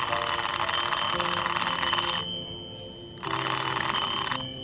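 Battery-powered twin-bell alarm clock ringing, its hammer striking the two bells in a rapid continuous ring. The ringing stops about two seconds in and rings again for about a second near the end.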